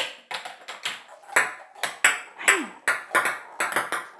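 Small hard plastic balls from a 4 Gewinnt Action game bouncing off a tabletop and striking the plastic Connect 4 grid in quick succession: a rapid, irregular run of sharp clicks and taps, about three or four a second, each with a short bright ring.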